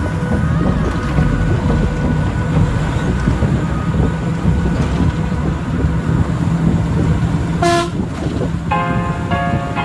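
A train running with a steady low rumble and a short toot near the end, then piano music comes in over it.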